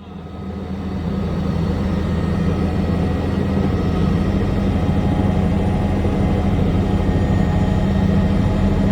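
Bell 505 Jet Ranger X helicopter running steadily: the low drone of its rotor and Arrius 2R turboshaft engine, fading in over the first second or so.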